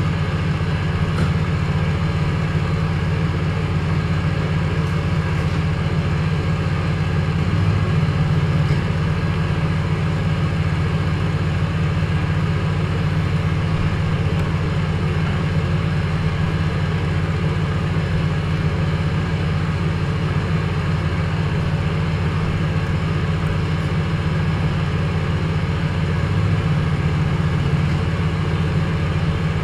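A steady, unchanging low drone.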